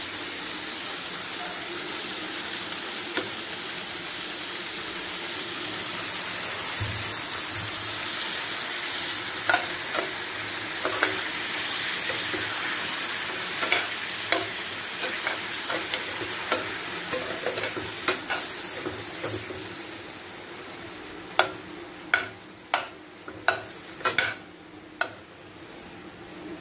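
Chicken pieces frying with a steady sizzle in a metal pan while a utensil stirs them, clinking against the pan. The sizzle dies down after about twenty seconds, and a quick run of sharp clinks follows near the end.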